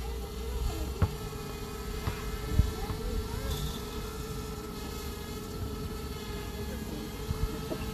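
Quadcopter drone's propellers giving a steady buzzing whine over a low wind rumble, with two short knocks, about one and two and a half seconds in.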